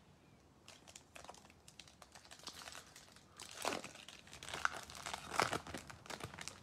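A Topps Chrome Update baseball card pack wrapper being torn open and crinkled by hand, faint crackles at first, then louder crinkling and tearing in the second half.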